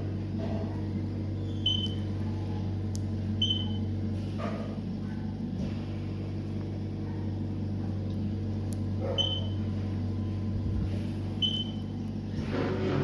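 Steady low electrical hum, with four short high beeps at irregular intervals.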